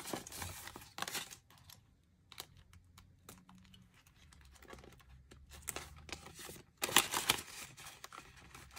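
Canadian polymer banknotes and a clear plastic binder pouch being handled: crinkling and rustling with scattered small clicks, loudest about seven seconds in.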